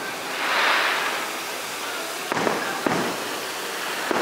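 Aerial fireworks bursting: a hiss about half a second in, then two sharp bangs about half a second apart a little past halfway, and another bang near the end.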